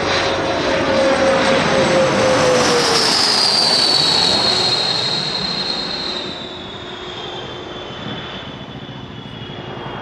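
Dassault Falcon 20 business jet passing low overhead on approach, its twin turbofans whining; the high whine and a lower tone drop in pitch about three seconds in as it goes by, and the noise fades after about six seconds.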